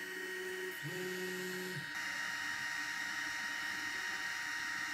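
EasyThreed K10 mini 3D printer's extruder motor giving a faint, steady whine as filament is fed into the extruder. The whine is strongest from about one second in and stops near two seconds, leaving a faint steady hiss.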